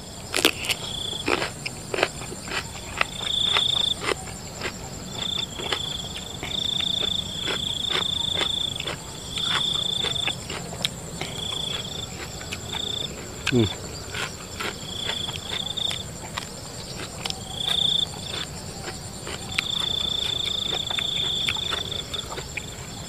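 Crickets chirping in repeated high trills, each about half a second to a second long, over scattered crisp crunching and chewing as raw cucumber is bitten and eaten close to the microphone.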